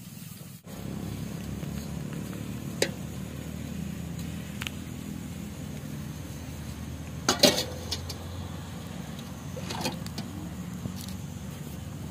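Metal utensils clinking now and then over a steady low rumble, with the loudest clatter about seven seconds in, as pots and plates are handled for washing.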